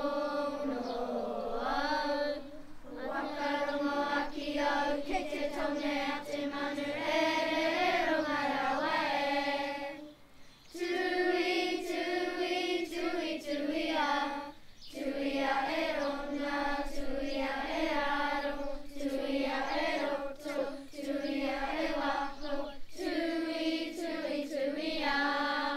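A group of children singing a Māori kapa haka song together in unison, in long held phrases that break off briefly for breath a few times.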